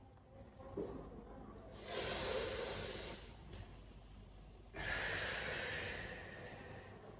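A person taking two long, deep breaths, one about two seconds in and another about five seconds in, the second fading out slowly.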